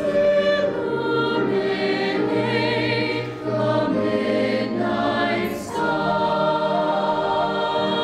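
Mixed choir of male and female voices singing sustained chords, with short breaks between phrases about three and a half and five and a half seconds in.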